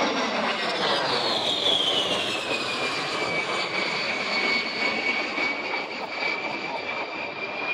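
A-10 Thunderbolt II's twin General Electric TF34 turbofan engines passing by in flight. A high whine falls in pitch between about one and three seconds in as the jet goes past, then holds steady over a loud rushing noise.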